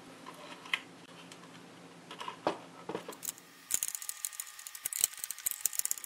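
A few soft plastic clicks as a cable connector is handled. Then, from about halfway, screws are driven into the robot vacuum's LIDAR mount: a fast run of ratcheting clicks over a faint steady whine.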